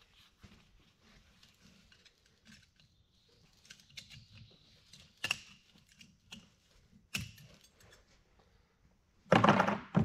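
Light metallic clicks and scrapes of a hand tool working the friction discs and steel plates out of a transmission clutch drum, with sharp clicks about five and seven seconds in and a louder metal clatter near the end.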